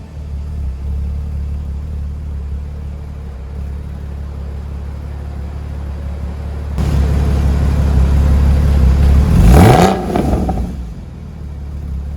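Porsche Boxster 981's flat-six engine idling steadily, growing louder about seven seconds in, then revved up quickly and let back down about nine and a half seconds in.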